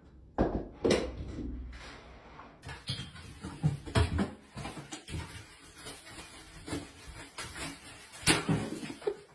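Several separate knocks and thumps, the loudest soon after the start, about four seconds in, and about a second before the end.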